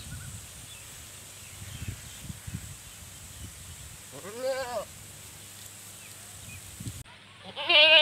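Goat bleating twice: a quavering bleat about four seconds in, then a louder bleat starting near the end.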